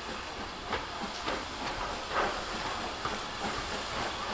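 Steam locomotive with a steady hiss of steam and a handful of short, sharp knocks.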